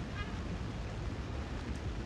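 Steady rain falling, an even hiss over a low rumble, with a short high chirp just after the start.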